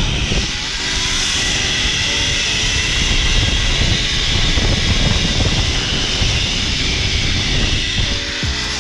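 Zip-line trolley running fast along the steel cable: a steady high whirring hiss, with wind buffeting the microphone as the rider speeds down the line.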